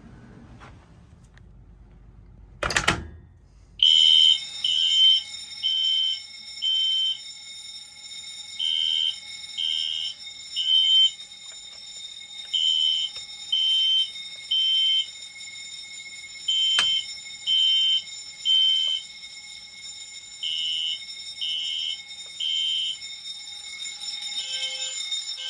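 Fire alarm signal sounding the temporal-three evacuation pattern: three high beeps, a pause, then three again, over a steady high-pitched tone. About three seconds in, just before the alarm starts, there is a single loud short burst.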